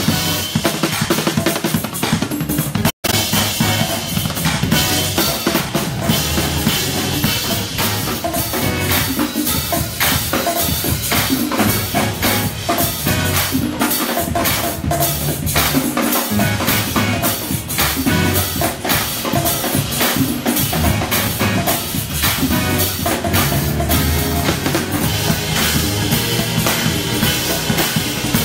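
Live band playing, with a drum kit loud and close (kick, snare and cymbals) over sustained bass and keyboard tones. The sound drops out for an instant about three seconds in.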